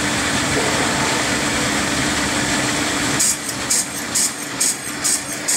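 Belt-driven brass-cutting machine running with a steady hum. About three seconds in the hum drops away, and short, sharp high-pitched sounds repeat about twice a second.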